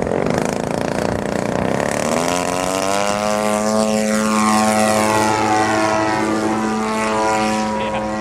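DLE-55cc single-cylinder gasoline two-stroke engine of a 30% Yak 54 RC aerobatic plane, turning a 22x8 propeller. It runs with a ragged sound at first; about two seconds in its pitch rises, then it holds a loud, steady high drone at full power as the plane lifts off and climbs.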